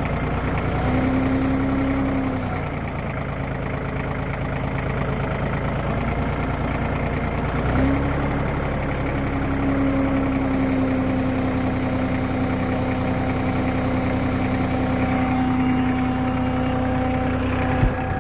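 Kioti LK3054 compact tractor's diesel engine idling, with a steady droning tone from around the hydraulic pump over it. The tone comes in about a second in, drops out a couple of seconds later, and returns about eight seconds in for the rest. It is an unexplained strange noise that started after a low-speed drive. A single sharp click comes near the end.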